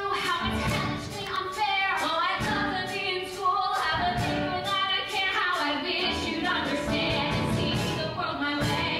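Two women singing a musical-theatre duet over instrumental accompaniment, with gliding, overlapping sung lines.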